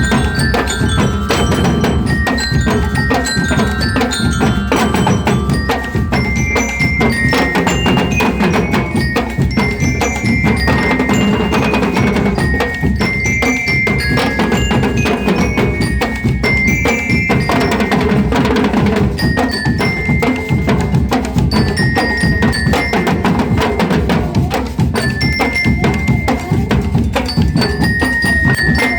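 Marching-band bell lyres (liras) playing a melody in short ringing notes over a steady beat of drums.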